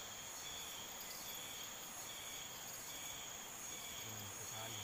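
Crickets and other insects chirring steadily, one high chirp pulsing about twice a second.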